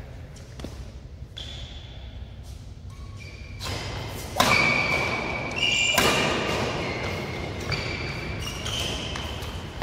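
Badminton rackets striking a shuttlecock in a doubles rally that starts about four seconds in, sharp hits ringing in a large hall, with sneakers squeaking on the synthetic court.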